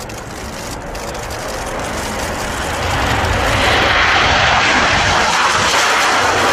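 MiG-29 fighter jet's engines at full power on a takeoff run: a roar of jet noise that grows louder over the first three seconds and then holds steady.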